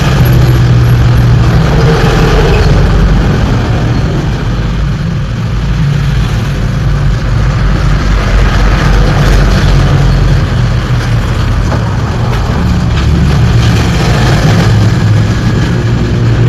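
A motor running continuously, with a low hum under a steady noisy hiss.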